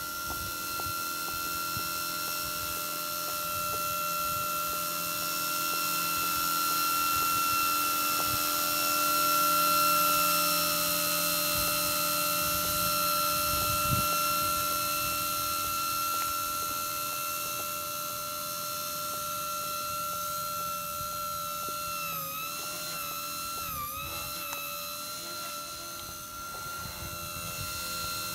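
cHP-120B micro electric RC helicopter in flight: a steady high-pitched whine from its motor, gears and rotor. It swells louder about ten seconds in, and its pitch dips briefly twice near the end as the rotor is loaded.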